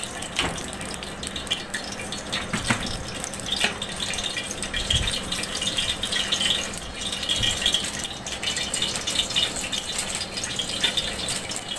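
Cooking oil heating in a pot on the stove, crackling and spitting steadily with scattered sharper pops.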